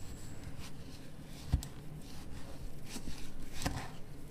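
Silicone spatula stirring granulated jam sugar and fruit in a saucepan: a gritty scraping with a few knocks against the pan, the sharpest about one and a half seconds in, over a low steady hum.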